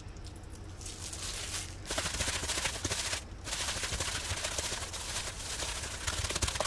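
Hand in a plastic glove kneading a ground beef and tofu mixture in a stainless steel bowl: crinkling glove and squishing filling. It starts about two seconds in, with a brief pause a second later.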